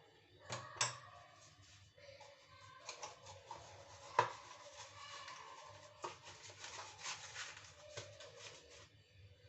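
A spoon stirring dry mug-cake mix of flour, sugar and baking powder in a mug, scraping against the sides with several sharp clinks, the loudest about four seconds in.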